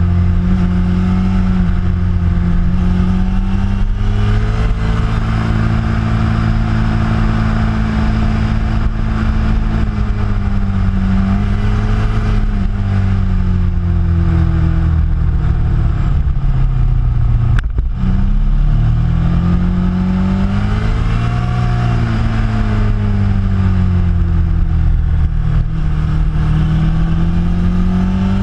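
Motorcycle engine heard from an onboard camera while riding through a series of bends, the revs rising and falling with the throttle, with steady wind rush over the bike.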